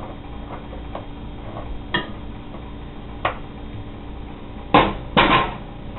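Seasoning bottles and containers handled on a kitchen counter: a couple of light knocks, then two short, louder clatters near the end.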